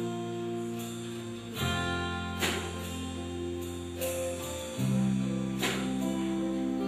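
Live band playing an instrumental passage: acoustic guitar chords over sustained low notes that change every second or two, with drum kit cymbal hits every so often.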